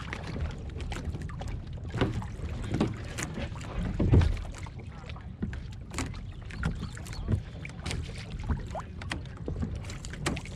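Irregular knocks and clatters of gear being handled on a Hobie Tandem Island kayak's hull, with the loudest thump about four seconds in, over a steady low rumble of wind and water on the microphone.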